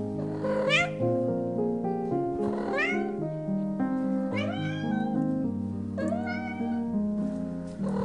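A cat meowing four times, about two seconds apart, over background music.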